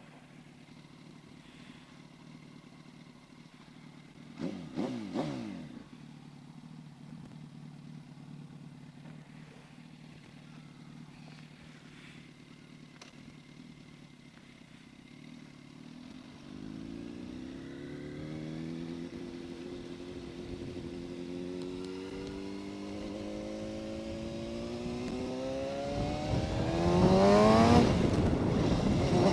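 Yamaha R1 inline-four sport-bike engine idling quietly, with a brief falling engine note about five seconds in. From about sixteen seconds in it pulls away and accelerates through several gears: the pitch climbs, drops at each shift and climbs again, growing louder near the end.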